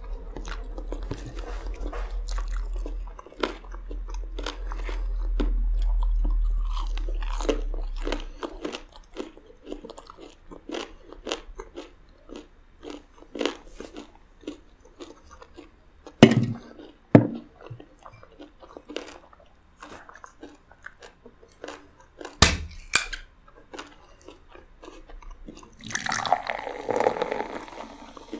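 Close-up crunching and chewing of fried chicken with a crisp crumb coating, many short sharp crunches, with a couple of louder knocks about two-thirds of the way through. Near the end, 7Up pours from a can into a glass.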